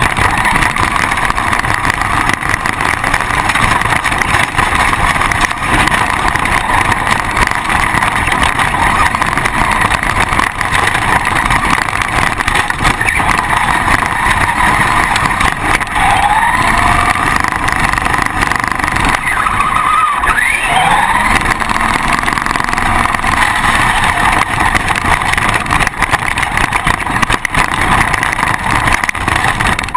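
RC car driving over rough dirt and grass, heard from a camera mounted on the car: a loud, steady rumble of the drivetrain and wheels, with the motor's whine rising in pitch a couple of times around the middle.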